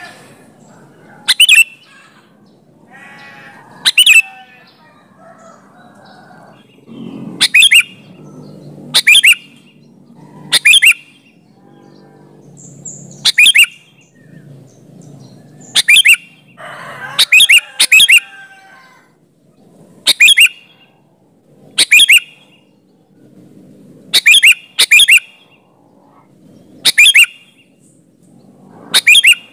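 Sooty-headed bulbul (kutilang) in full song: about fifteen short, loud, sharp calls repeated every second or two, sometimes two in quick succession, over a faint low background.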